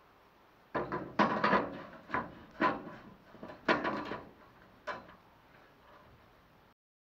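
A long sheet-steel repair strip knocking and clattering against a van's rusty roof edge as it is handled and laid in place: about eight sharp knocks with a short metallic ring, spread over four seconds.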